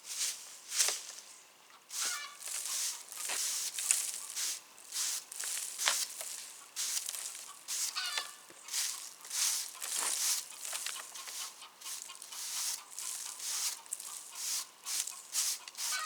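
Irregular short scraping or brushing strokes, one or two a second, with a few brief bird calls.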